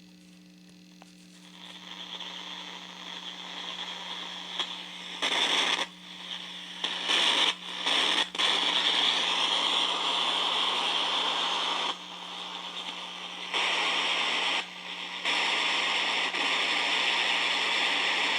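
Small battery-powered world-band radio playing static over a steady low hum; from about a second and a half in the hiss swells, then cuts abruptly between louder and quieter stretches a few times.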